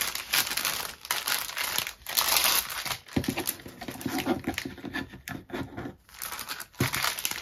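Thin clear plastic bags crinkling and rustling in irregular bursts as they are handled, with small packets of diamond-painting drills being slipped back into a larger bag.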